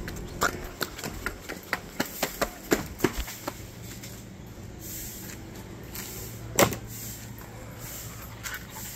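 Footsteps on a stone garden path: a quick run of crisp steps for the first three and a half seconds. A single louder knock follows about six and a half seconds in.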